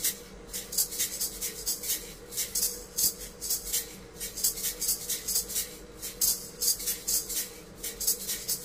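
A pair of maracas shaken in a steady rhythm of several crisp strokes a second, with a brief gap about every two seconds where the first beat of the pattern is left as a rest.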